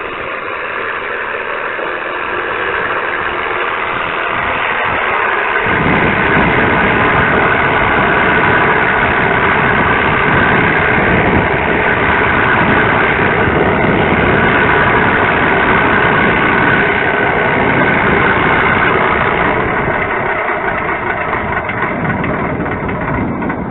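Simulated warbird piston-engine sound from a Mr. RC V4.1 sound card, played through two TT25 transducers in an RC P-51 Mustang. It runs steadily, becomes louder and deeper about six seconds in, then dies away near the end as the shutdown sequence plays out.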